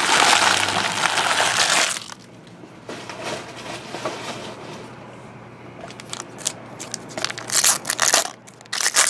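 Foil trading-card pack wrapper crinkling and crumpling loudly for the first couple of seconds, then more crackling bursts near the end as a foil pack is torn open.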